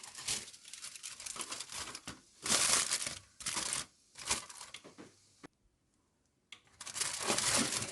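Aluminium foil crinkling in several bursts, with a second or so of silence about two-thirds of the way through.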